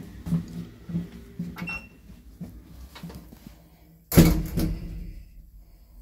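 Old Otis elevator's sliding car door shutting with a single loud thud a little over four seconds in, after a few light knocks and clicks.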